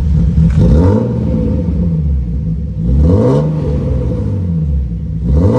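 BMW E36 M3 straight-six running with no exhaust fitted, a deep rumble at idle, blipped up and back down twice with a third blip starting near the end. The revs rise and fall smoothly, which the owner takes as a sign that the misfire is fixed.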